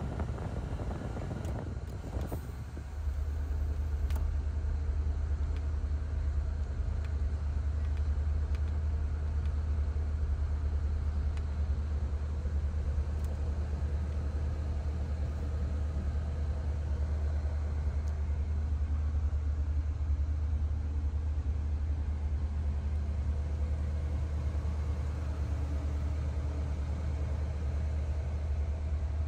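1978 Cadillac Coupe DeVille's V8 engine running, heard from inside the cabin as a steady low rumble that grows louder about three seconds in.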